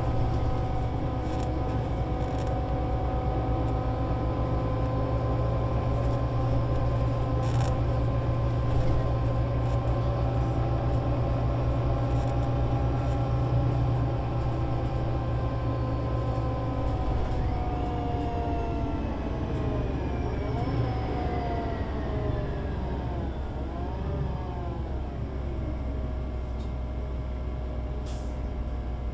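Solaris Urbino 18 IV articulated bus with a DAF diesel engine and Voith Diwa 6 automatic gearbox, running at a steady speed with a low drone and a drivetrain whine. After about 17 seconds the whine falls in pitch and wavers as the bus slows, then settles lower.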